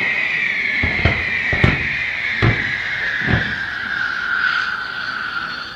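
Fireworks: a long, high whistle that slowly drops in pitch and cuts off near the end, with five dull bangs spaced about a second apart.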